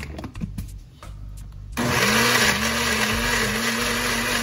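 Countertop blender starting up a little under two seconds in after a few light knocks, then running steadily with a held hum, puréeing soaked dried chiles in water into a thin chile sauce.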